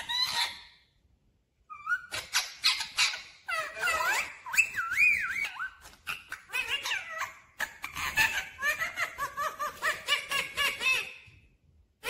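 Indian ringneck parakeet chattering in a long run of quick, wavering high-pitched calls, starting after a short pause about two seconds in.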